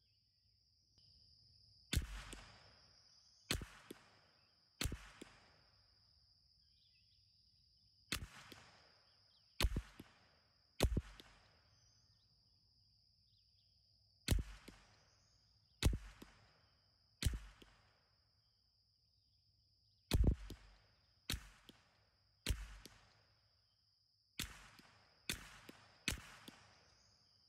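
Ruger 10/22 rifle firing .22 LR: fifteen single shots in five strings of three, the shots in each string a little over a second apart. Each crack trails off in an echo.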